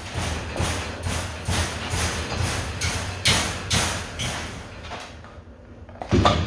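Pit bull licking and chewing a raw rack of lamb chops in a steel bowl, with wet mouth strokes about twice a second, then one loud knock near the end as the meat is dragged against the bowl.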